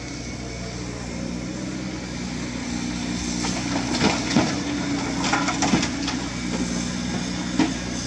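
Diesel engine of a CAT 320D2 excavator running steadily under load while a bucket of limestone is tipped into a dump truck's steel bed. A cluster of rock clattering and banging comes from about three and a half to six seconds in, and one more bang near the end.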